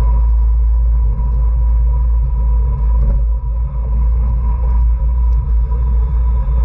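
Wind buffeting the microphone of a camera on a moving racing bicycle, a loud, steady low rumble, with a thin steady whine running through it.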